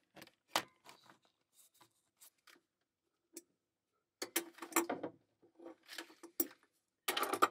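Wrench clicking and clinking against a seacock's gate valve as it is worked loose, in short clusters of metallic taps from about four seconds in and again near the end.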